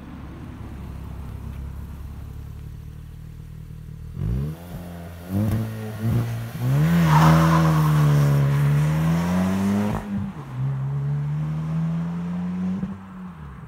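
Hyundai i20 N's 1.6-litre turbocharged four-cylinder, in N mode, accelerating hard past the roadside. The engine note holds steady for the first few seconds, then the revs climb through quick gear changes, loudest from about seven to ten seconds in. After a sharp break about ten seconds in, a steadier note pulls on and fades near the end.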